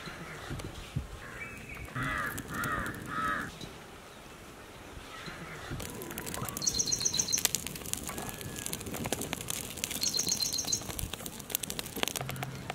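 Wood fire crackling with many small sharp pops from about halfway on as a whole chicken is singed over it. Birds are calling: three short calls about two seconds in, and two quick high trills later.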